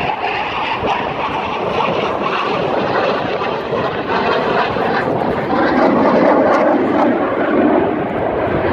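Canadian CF-18 Hornet fighter jet flying past, the steady noise of its twin General Electric F404 turbofan engines. About halfway through, the noise drops lower in pitch and grows a little louder.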